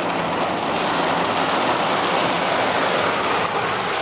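Heavy rain falling on a car, heard from inside the cabin as a steady, even hiss.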